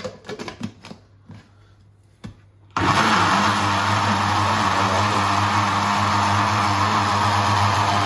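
A few light clicks and knocks of kitchen handling, then about three seconds in an electric kitchen mixer switches on and runs steadily with a low hum, blending pancake batter.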